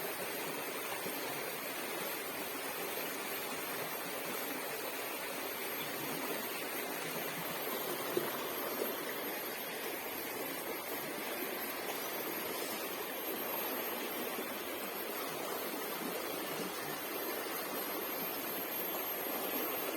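Steady rushing of flowing water, an even hiss with no breaks or distinct events.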